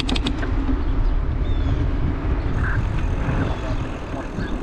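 Wind rumbling on a GoPro's microphone during a bicycle ride along a road, with the steady noise of traffic and tyres, and a quick run of sharp clicks right at the start.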